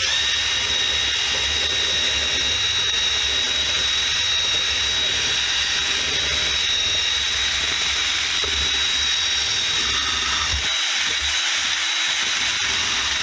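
Power-tool wire wheel running against a steel C clamp to strip rust: a steady high whine over a hiss. The low rumble drops away near the end.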